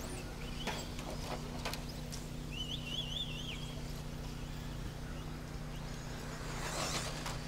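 Radio-controlled stadium trucks running on a dirt track, heard faintly over a steady low hum, with a few light clicks early on and a brief warbling whine about two and a half seconds in.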